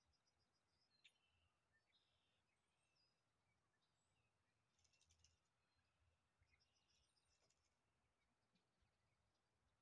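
Near silence with faint birds chirping, including a couple of quick trilled runs of notes.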